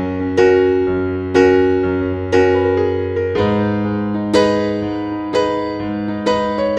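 Slow background piano music: a chord or note struck about once a second, each ringing out and fading over a steady bass.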